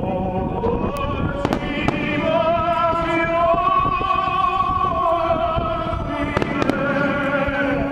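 Fireworks going off in a few sharp bangs, about a second in and again around six and a half seconds, over operatic singing with long wavering held notes and instrumental backing.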